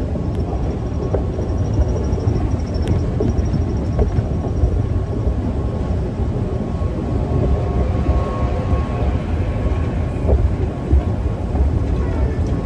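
Dubai Metro train running, heard from inside the carriage: a steady low rumble with faint thin whining tones.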